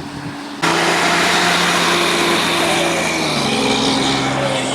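Fire truck's diesel engine running loud as the apparatus drives past, coming in abruptly about half a second in. Its engine note steps down in pitch about three seconds in.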